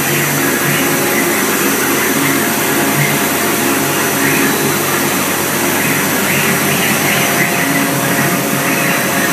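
CNC router engraving a wooden board: its spindle and the dust-extraction suction on the head make a loud, steady rushing noise with a low hum underneath.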